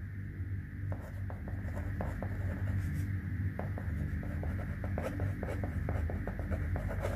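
Pen writing on paper: short quick scratching strokes and light taps of the nib as words are written out, starting about a second in, over a steady low hum.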